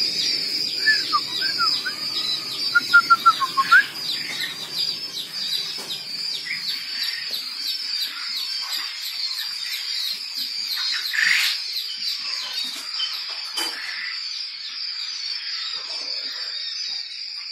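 A brooder full of quail chicks peeping continuously: a dense chorus of thin, high chirps, with a run of louder, lower chirps from birds close by about three seconds in.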